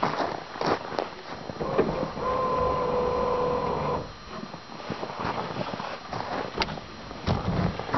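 Knocks, clanks and scraping from a snow-caked 54-inch Yellowstone compaction drag, a steel grooming frame, being handled and shifted. About two seconds in, a steady mid-pitched tone is held for nearly two seconds and then stops.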